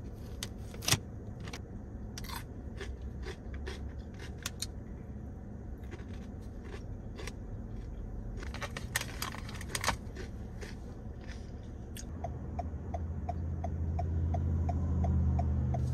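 A foil snack bag of pickle bites being handled and eaten from: crinkling and rustling with scattered sharp clicks and crunches. In the last few seconds a low hum swells, with a quick, even ticking of about three to four a second over it.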